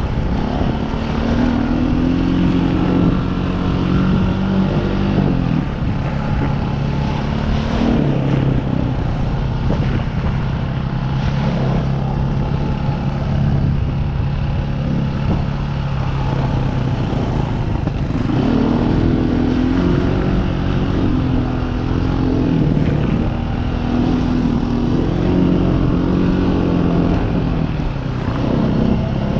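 Trail motorcycle engine under way on a rough dirt lane, heard close up. Its note rises and falls with throttle and gear changes, holds steady for a long stretch in the middle, then climbs and drops several times near the end.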